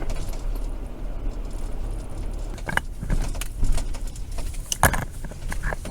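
A steady low car hum with several sharp clicks and a metallic jangle like keys, the loudest about three and five seconds in.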